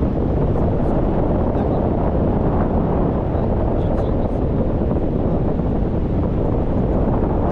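Steady, loud wind rumble on the microphone from the rush of air during a tandem paragliding flight.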